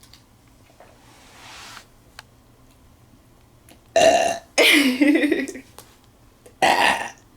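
A woman burping deliberately, three loud belches in quick succession starting about four seconds in. The middle burp is the longest and wavers in pitch; the last is short.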